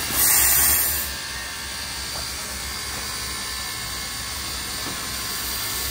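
Steam locomotive standing with its fire up: a short loud hiss of steam about a quarter-second in, over a steady low rumble.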